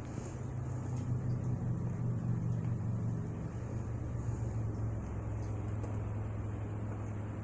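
Steady low mechanical hum, a little louder for the first few seconds.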